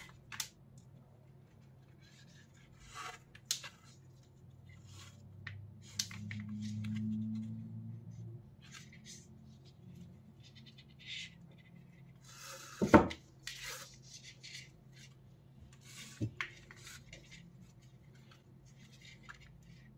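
Handling noise from lacing paracord through a hard Kydex sheath: scattered small clicks, taps and rustles of the cord and the plastic. There is one sharp knock about two-thirds of the way through.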